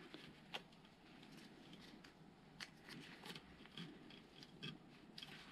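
Very faint rustling and small crinkling ticks of a tennis overgrip's loose end being folded and pressed down by hand, scattered irregularly.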